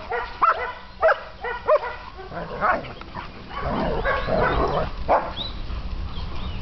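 German Shepherds play-fighting: a run of short, high-pitched yips and whines, then from about two and a half seconds in a rougher, noisier stretch of growling as they tussle and run.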